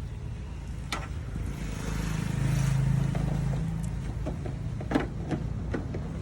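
A motor vehicle engine running with a low rumble that swells louder for a second or so about two seconds in, with a few sharp clicks.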